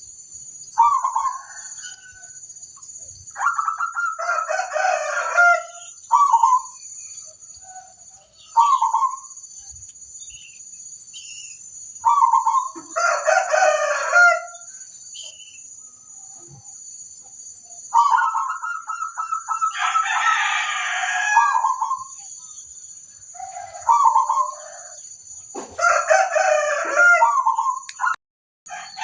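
Zebra doves (perkutut) cooing in repeated phrases of one to three seconds. Some phrases open with a fast trill before the main coo. A steady high-pitched drone runs underneath.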